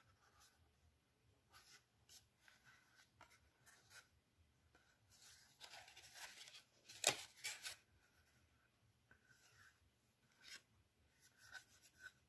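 Faint rustling and scraping of cardstock as a folded pop-up card is handled and its flaps are pushed open and folded, with one sharp click about seven seconds in.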